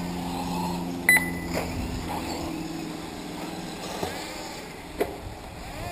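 Radio-controlled off-road model cars running on a dirt track, their motors making a steady hum that fades after about two seconds. A sharp short beep comes about a second in, and a click near the end.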